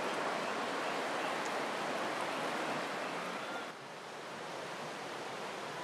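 Steady rush of flowing river water, dropping to a quieter level a little under four seconds in.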